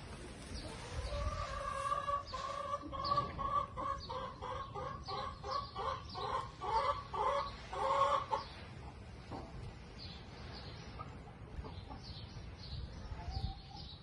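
A chicken cackling. It gives a drawn-out note, then a quick run of loud rhythmic clucks, about three or four a second, growing louder and stopping about eight seconds in. A faint single call follows near the end.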